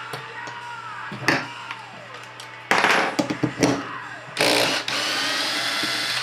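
A small power tool's motor whirring in several short bursts about three seconds in, then running steadily for about a second and a half near the end.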